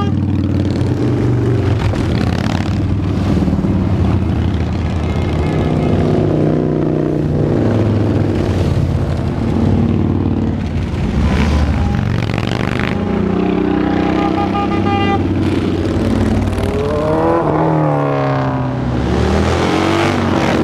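Cruiser motorcycles riding past one after another in a parade, their engines running loud and overlapping. Near the end a passing engine's pitch swings up and down.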